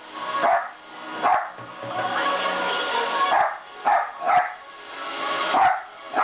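Jack Russell terrier barking in about six short, sharp barks, spaced irregularly, over background music.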